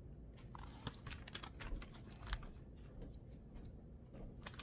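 Magazine pages being handled and turned: faint, scattered paper rustles and small clicks, the sharpest a little past halfway.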